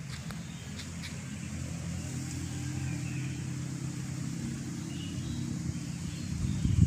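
Steady low mechanical hum with a rumble under it, and a few light clicks in the first second.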